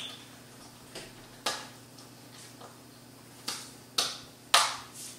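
A few sharp light clicks and taps, spaced irregularly, as kitchen items are handled on a countertop; the loudest comes near the end.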